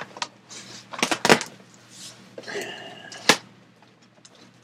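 A package being handled: a few sharp knocks and clicks with some rustling, the loudest knock a little after three seconds in.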